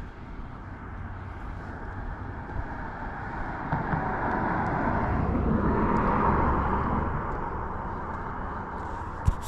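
A car passing by, its noise swelling to a peak about six seconds in and then fading. A short knock sounds just before the end.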